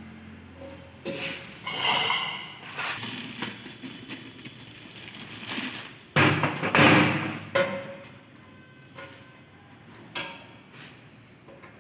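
Knocks, taps and clattering of a tractor's spin-on hydraulic filter being unscrewed and handled, with hands and tools against the metal housing. The loudest clatter comes about six seconds in and lasts over a second.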